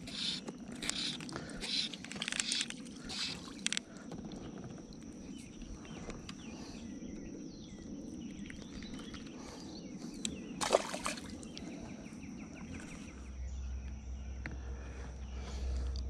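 Rubbing and rustling against the camera in a quick run of short bursts for the first four seconds, then calm open-air background with a faint steady high tone. A single sharp knock comes about eleven seconds in, and a low steady hum comes in near the end.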